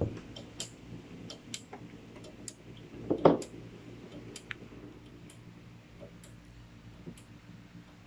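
Scattered light clicks and a single knock about three seconds in, from a hand handling the phone camera as it is turned toward the alarm panel, over a faint steady hum. No alarm sounds, because the sounder is disconnected.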